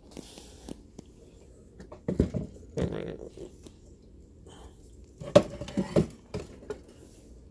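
Clunks and knocks as a heavy steel valve-amplifier chassis is handled and shifted on a wooden bench, in a few separate bumps. The sharpest and loudest knock comes about five and a half seconds in.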